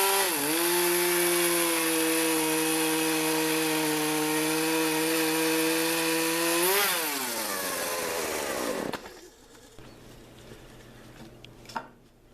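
Electric saw cutting Osage orange scale wood: a steady motor whine with a brief dip in pitch about half a second in. About seven seconds in the saw is switched off and the whine falls as it spins down, stopping about two seconds later. A few light clicks follow.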